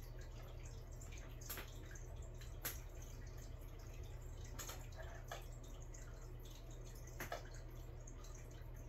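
A handful of light, sharp plastic clicks as action-figure parts are handled and fitted together, over a steady low hum.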